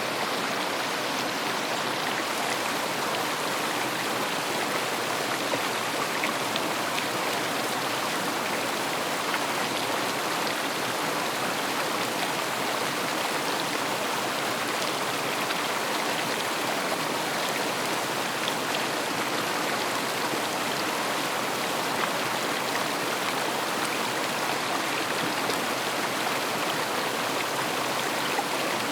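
A river's water rushing and splashing steadily, without let-up.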